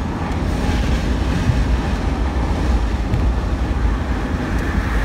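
Wind buffeting the phone's microphone in an open-top car on the move, over a steady low rumble of road and engine noise.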